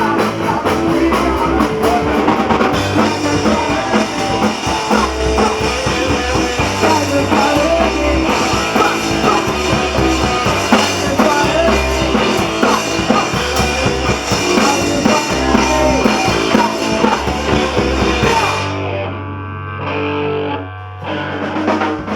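Punk rock band playing live: distorted electric guitar, bass and drum kit at full tilt. About eighteen seconds in, the drums and cymbals drop out, leaving a low chord ringing with a few last hits as the song ends.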